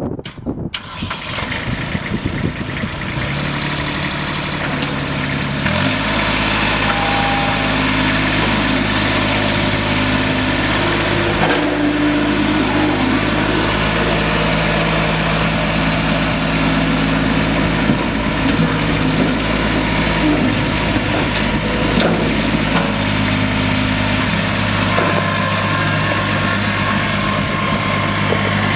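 Kubota B2410 compact tractor's three-cylinder diesel engine running steadily while the front loader is raised and the tractor drives off; its note changes about six seconds in, then holds.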